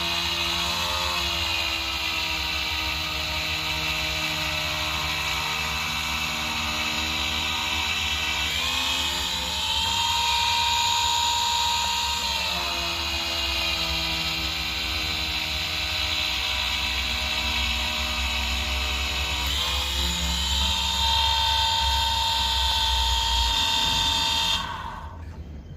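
Drill press motor running steadily, its pitch dipping and recovering a few times as it works, then switched off and winding down near the end.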